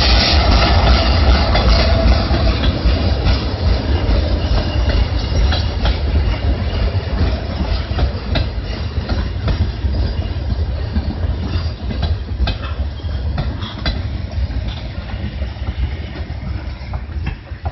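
A passenger train passing: the coaches' wheels click over rail joints at uneven intervals over a steady rolling rumble. The noise is loudest at first, as the TGM8KM diesel locomotive goes by, and slowly fades.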